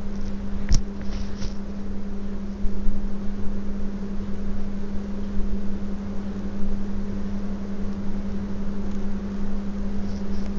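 A steady hum throughout, under the soft wet squelching of hands mixing yogurt-marinated chicken in an aluminium pot, with one sharp click under a second in.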